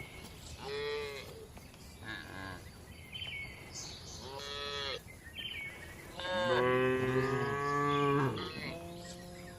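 Several cows mooing, one after another: a few short moos in the first half, then a long, louder moo lasting about two seconds, and another moo near the end.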